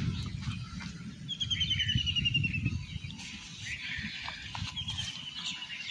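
A small bird trills twice, each time a quick run of high notes falling slightly in pitch, the second one near the end. Under it runs a low rustling from the wet nylon net being handled.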